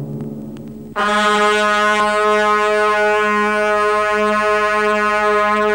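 Dramatic background score: a low held tone fades out, then about a second in brass comes in suddenly at full strength and holds one long, steady note.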